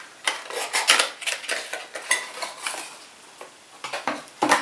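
Small packaging opened by hand, with rustling and light clinks as a candle in a small tin is taken out. A louder clatter comes near the end.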